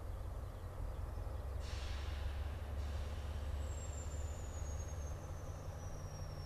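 Diesel locomotive hauling a loaded stone train at low speed, its engine running with a steady low rumble. A short hiss of released air comes about two seconds in, and from about halfway a faint high whine slowly falls in pitch.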